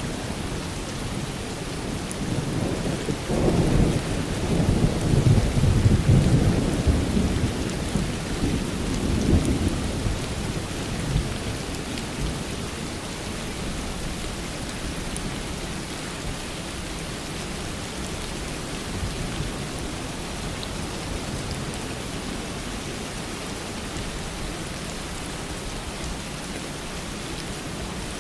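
Steady rain falling, with a low roll of thunder that builds a few seconds in, is loudest around six seconds, and fades away by about eleven seconds, leaving the even hiss of the rain.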